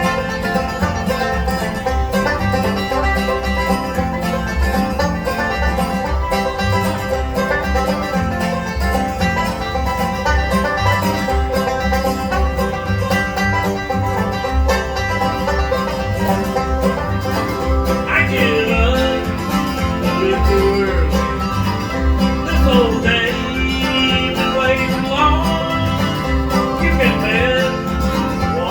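Bluegrass band playing, with banjo and guitar over a steady low beat. A wavering lead melody comes in over the top about two-thirds of the way through.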